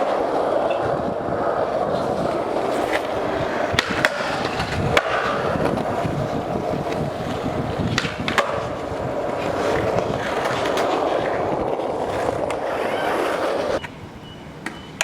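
Skateboard wheels rolling steadily over concrete, with a few sharp clacks of the board and trucks along the way; the rolling stops about a second before the end.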